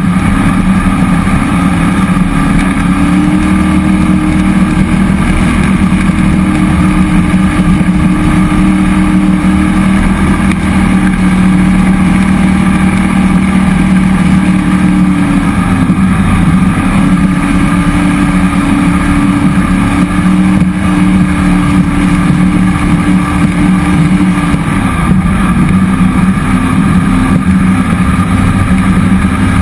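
Cammed 5.3L LS V8 in a jet boat running under way at a steady cruise. The engine note rises slightly about three seconds in, dips and rises again around the middle, and drops a little near the end as the throttle is eased.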